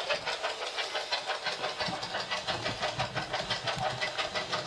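Spirit box sweeping through radio stations: a run of choppy static chopped up about ten times a second.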